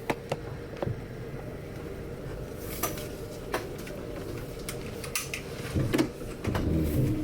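Scattered clicks and knocks of things being handled and latched, over a steady low hum.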